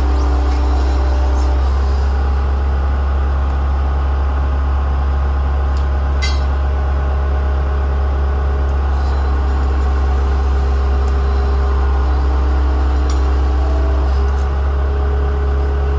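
Gehl CTL-70 tracked skid steer's diesel engine running steadily with a constant low hum, while the machine is driven slowly forward to walk the new rubber track onto the front idler. A single sharp click about six seconds in.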